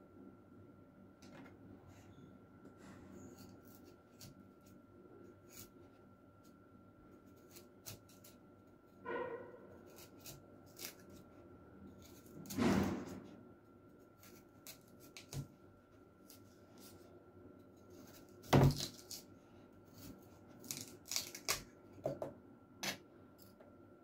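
Kitchen knife cutting and hollowing out the core of a halved pear over a cutting board: scattered small clicks and taps, with a few louder knocks, over a faint steady hum.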